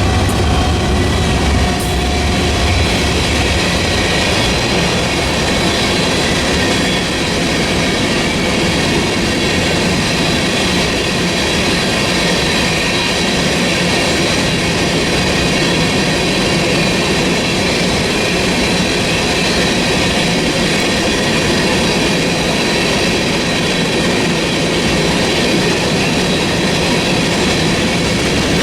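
Freight train cars rolling past close by, a continuous steel-wheel rumble with clacking over the rail joints and a faint high wheel squeal. A deep low rumble eases within the first couple of seconds.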